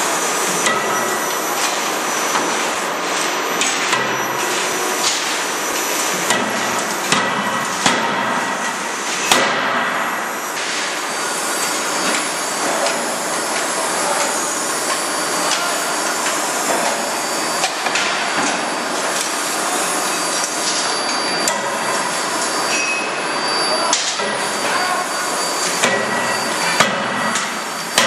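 CNC die forging hammer striking red-hot steel in connecting-rod dies: sharp blows at irregular intervals, a few seconds apart, over steady loud shop-machinery noise with faint high steady tones.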